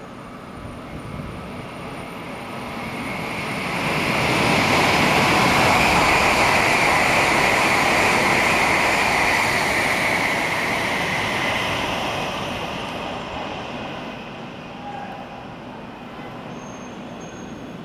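CRH2C high-speed electric multiple unit running through the station at speed without stopping: a rushing noise of wheels and air that builds over a few seconds, stays loud for about eight seconds with a high hiss over it, then fades away.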